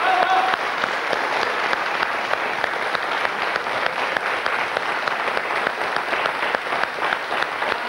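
Studio audience applauding steadily, many hands clapping.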